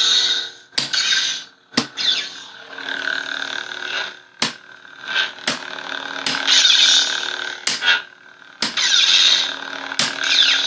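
Electronic lightsaber hilt with a blade fitted, playing its steady hum through its small speaker, with whooshing swing sounds that swell and fall in pitch every second or two as it is moved. Several sharp clicks are heard along the way.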